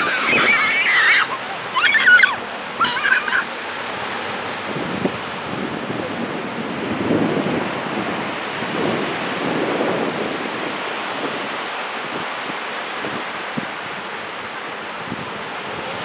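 Small waves breaking and washing up a sand beach, an even rushing noise that swells and eases. In the first few seconds a young child's high-pitched calls, several short cries, are the loudest sound.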